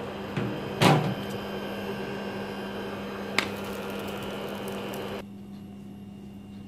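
Steady kitchen hum over a hiss, with one loud knock about a second in and a short sharp click a little after three seconds; the hum drops quieter about five seconds in.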